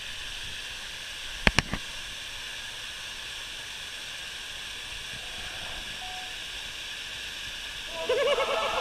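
Steady rush of water running out of a small dam that has been opened. Two sharp knocks come about a second and a half in.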